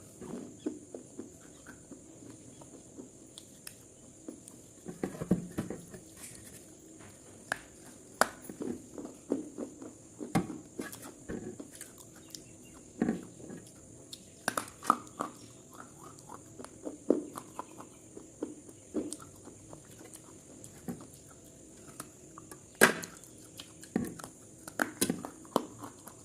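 Irregular light taps and clicks, several a second at times, some with a dull low thud, over a steady high-pitched hiss.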